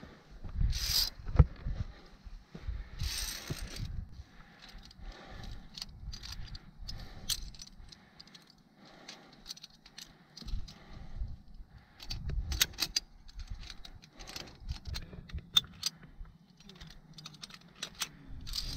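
Metal climbing gear, carabiners and via ferrata lanyard hardware, clinking and rattling in irregular sharp clicks, the loudest about a second and a half in, with two short rushes of noise near the start.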